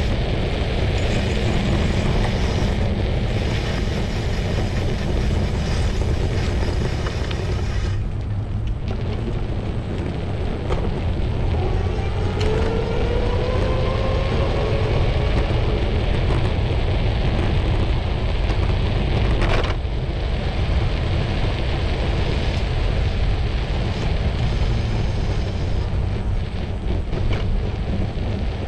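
Wind buffeting the phone's microphone on a moving bicycle, a steady deep rumble with street traffic under it. About halfway through, a passing vehicle's engine rises in pitch for a few seconds, and a single sharp click comes a little later.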